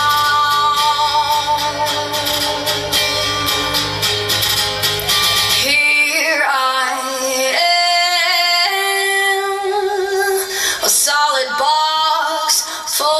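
Music: a song with a singing voice over instrumental backing. About six seconds in, the deep bass drops away, leaving long held sung notes over lighter accompaniment.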